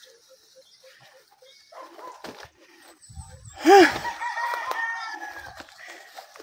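A loud, drawn-out bird call, about two seconds long, starting a little past halfway: its pitch rises sharply, then falls slowly. Faint small ticks come before it.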